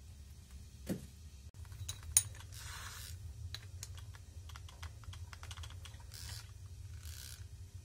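Keyed drill chuck being tightened onto a small wire-wheel brush with a chuck key: a string of small metallic clicks and clacks, with one sharper knock about two seconds in and a few brief scrapes. A steady low hum underneath.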